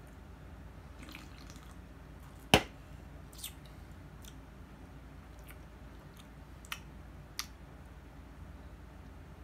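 Faint wet mouth clicks and smacks after a swallow of a drink, with one sharp, loud click about two and a half seconds in and a few softer clicks later.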